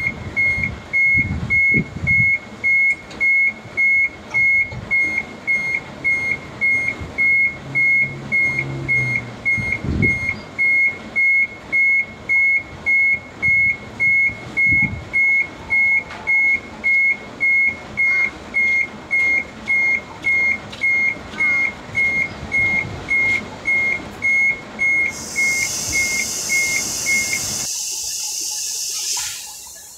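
A truck's reversing alarm beeps steadily, a little under two beeps a second, over a low truck engine rumble. Near the end the beeping stops and a long hiss of air fades away.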